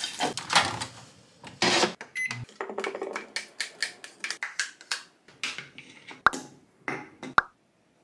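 Kitchen handling sounds: plastic wrap crinkling and rustling around frozen tortilla wraps on a plate, with a short beep about two seconds in. Then a run of small clicks and rustles and two sharp clinks near the end as yogurt is spooned from its tub into a wooden bowl.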